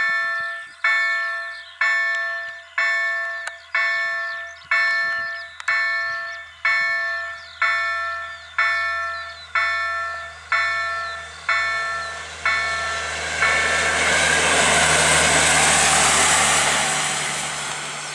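Level-crossing warning bell striking about once a second, steady and ringing, until about thirteen seconds in. The engine hum of a yellow PKP Energetyka overhead-line maintenance vehicle grows beneath the bell, and near the end the vehicle passes close by with a loud rush of engine and wheel noise that then fades.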